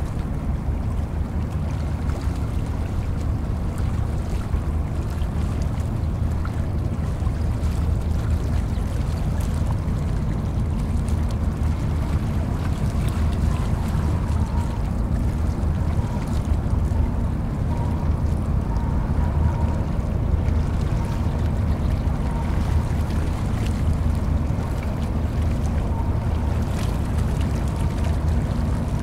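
Harbour tugboats' diesel engines (about 4,000 PS class) running under load with a steady low drone as they assist a container ship out of port.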